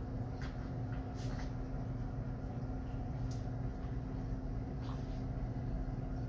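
Aquarium equipment running with a steady low hum, with a few faint soft ticks.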